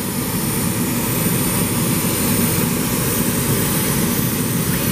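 CNC laser cutter running steadily as it cuts through polyurethane foam: a continuous machine drone from its fans and moving head, with no pauses.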